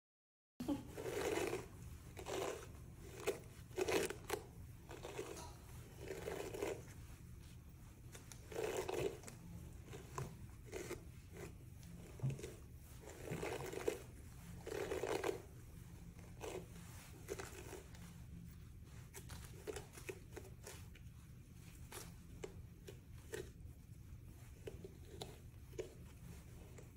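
Plastic detangling brush pulled through long wet curly hair in repeated strokes, a soft scratchy rasp every second or so, lighter in the second half. A low steady hum runs underneath.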